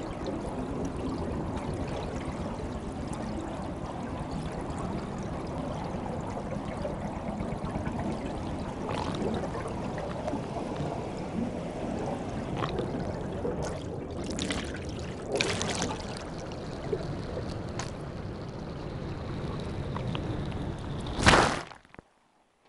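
Underwater sound from a suction-cup DTAG on a bubble-net-feeding humpback whale: a steady rush of water flow and bubbles, with a few louder gushes past the middle. A faint steady high tone runs for a few seconds before a loud rush near the end, then the sound cuts off suddenly.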